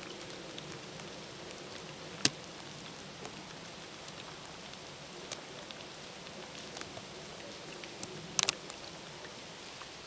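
Steady patter of wet snow and meltwater dripping through snow-laden trees, with scattered sharp taps of drops landing. The loudest tap is about two seconds in, and a quick cluster of them comes near the end.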